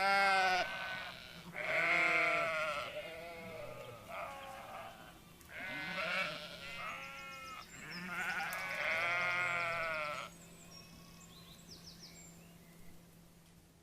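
Sheep bleating: a series of long baas that waver in pitch, about six calls over ten seconds, then a quieter lull for the last few seconds.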